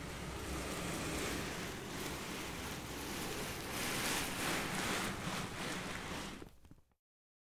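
A steady rushing noise that swells a little in the middle and dies away near the end.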